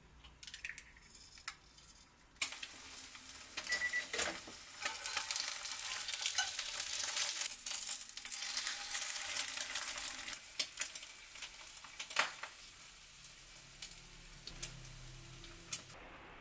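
An egg frying in oil in a ceramic-coated frying pan, sizzling and crackling. It dies down about three quarters of the way through, leaving a few light taps.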